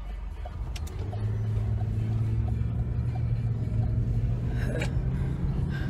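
Car engine and road rumble heard from inside the cabin while driving, with a steady low engine hum setting in about a second in as the car turns.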